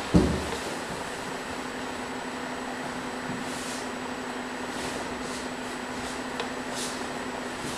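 Steady hiss and low hum of room tone, with a dull thump and brief rumble right at the start and a few faint ticks.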